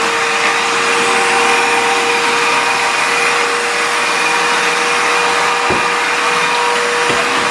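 Cordless wet-dry floor washer running steadily as its roller head mops a tiled floor: a steady rushing of suction air with a constant motor hum. Two brief low knocks near the end.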